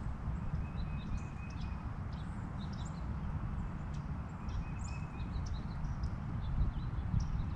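Small songbirds chirping and twittering in short, scattered high calls, with a brief trill twice, over a steady low rumble.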